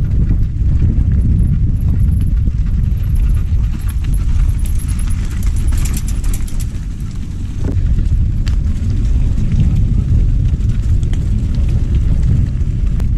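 Mountain bike rattling down a loose rocky trail, with wind rumbling on the bike-mounted camera's microphone: a loud low rumble with scattered clicks and clatters of tyres and bike parts over stones.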